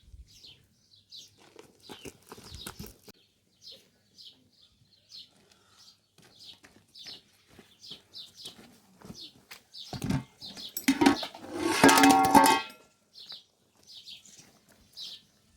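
Small birds chirping over and over in short high notes. About ten seconds in, a louder pitched sound lasting about two and a half seconds stands out over them.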